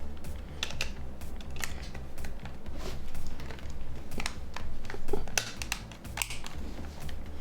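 Irregular small plastic clicks and taps from the parts of a Nokia 3410 phone being handled and fitted together, its keypad and body shell.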